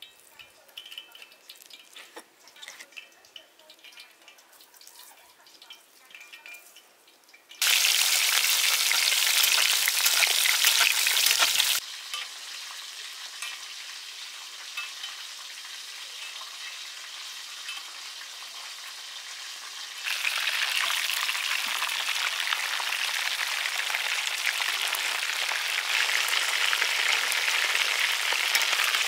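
Whole scored fish frying in hot oil in a wok. After a few seconds of faint small taps, a loud sizzle starts suddenly, settles to a steadier, softer hiss, and grows louder again for the last third.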